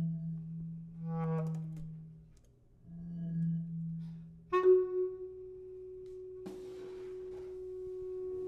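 Bass clarinet holding long, low swelling notes while a marimba is struck softly with yarn mallets, its notes ringing above. Just past the middle a sharp attack gives way to a single pure, steady high note held to the end, with a brief hiss under it.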